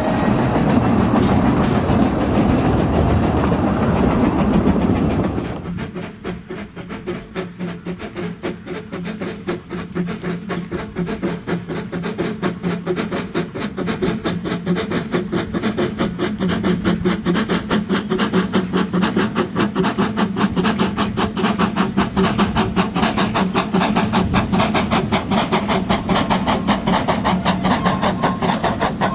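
Narrow-gauge passenger carriages rolling past on the rails. About five seconds in, this gives way to a fast, regular chuffing from two small steam tank locomotives double-heading a goods train, a Hunslet 0-4-0 saddle tank in the lead, growing louder as they approach.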